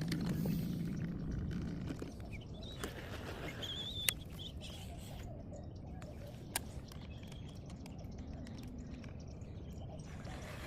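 Outdoor lake ambience with a steady low rumble, a bird giving a short wavering call a few seconds in, and two sharp clicks a couple of seconds apart.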